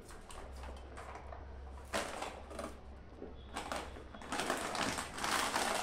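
Plastic grocery packets rustling and crinkling as they are handled and pulled out of a cloth shopping bag, sparse at first and busier and louder in the second half.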